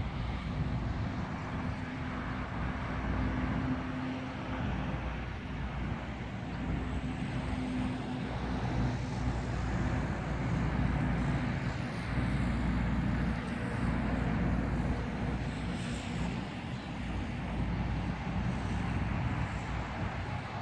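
Road traffic: a steady low rumble of vehicle engines and tyres, swelling now and then as cars and vans pass.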